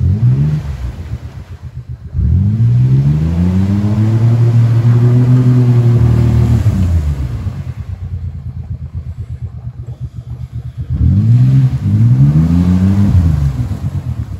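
Ford Ranger pickup's engine revved hard again and again while the truck is stuck in deep flood water. A short rev at the start, a long rev held for several seconds, a drop back toward idle, then another rev near the end.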